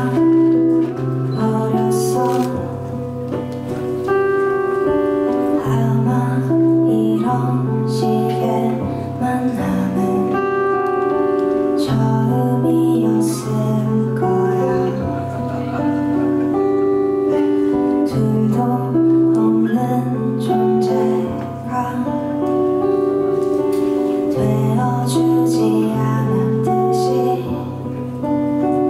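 A woman singing a song, accompanied by her own acoustic guitar, which plays a steady pattern of chords whose bass note changes every two or three seconds.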